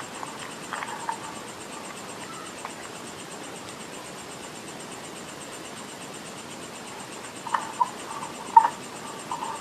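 Close-miked chewing of clay: a few short crunches and wet mouth clicks about a second in, then a louder cluster near the end, over a steady hiss.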